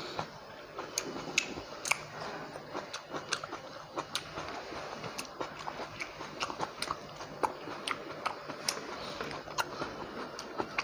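Close-miked sounds of a person eating: chewing with many sharp, wet mouth clicks and smacks, coming irregularly, several a second.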